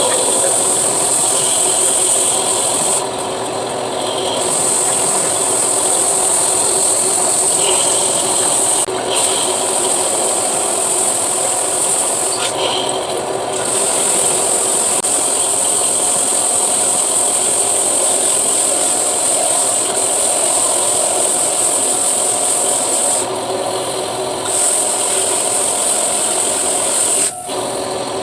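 Electric belt sander running steadily against wood, a loud high hiss over a motor drone. The hiss drops out briefly about four times, and a sharp click comes near the end.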